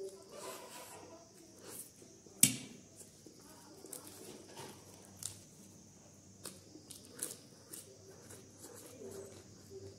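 Close-up eating sounds: chewing and mouth smacks over instant noodles and raw leafy greens, with scattered small clicks. About two and a half seconds in comes one sharp clink, the loudest sound, as the metal fork is set down on the ceramic plate.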